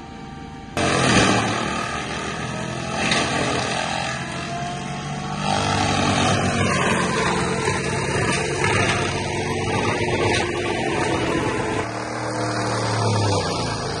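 FAE forestry mulcher head on a JCB compact track loader grinding through a pile of brush. Loud continuous machine noise comes in abruptly about a second in. The rotor's whine dips and recovers as it bites into the wood, with a few sharp snaps of branches.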